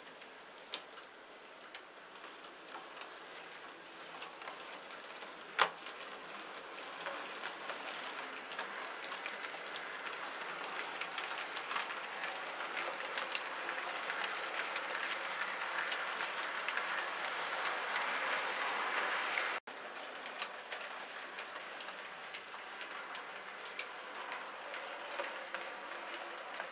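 An OO gauge model goods train, a Bachmann Class 20 diesel hauling wagons, running on model railway track. Its wheels click rapidly over the rail joints and the sound grows louder as the train approaches. There is one sharp click about five seconds in, and the sound drops abruptly near the end and carries on quieter.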